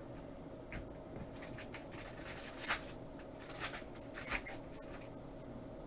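Trading cards being flipped through by hand, card stock sliding against card stock in a quiet series of short, soft swishes, over a faint steady hum.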